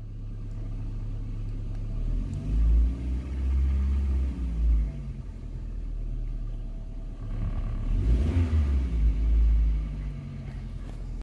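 Perodua Myvi SE's petrol engine idling in Park, blipped with the throttle about two seconds in and again about eight seconds in, the pitch rising and falling back each time. Heard from inside the cabin.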